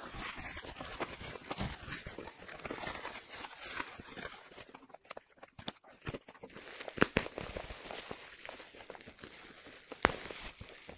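Bubble wrap and plastic packaging rustling and crinkling as it is handled and cut open with scissors, with scattered clicks and a couple of sharper snaps.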